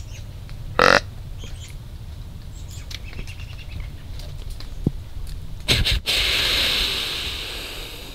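Whitetail deer calls: a short grunt about a second in, then near six seconds two quick puffs and a long hissing wheeze that fades over about two seconds, the snort-wheeze of a rutting buck.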